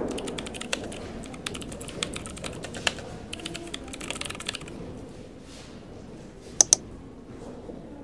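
Typing on a computer keyboard: quick runs of keystrokes for the first half, stopping about halfway. Near the end come two sharp, louder clicks a fraction of a second apart.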